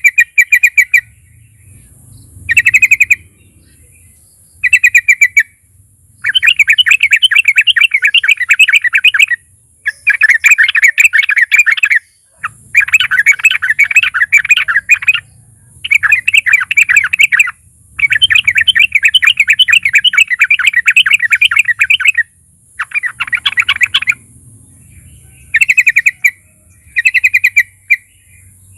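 Trucukan (yellow-vented bulbul) singing in repeated bouts of fast, bubbling chattering notes. Short phrases come near the start and end, with long runs of several seconds in between, over a faint steady hiss.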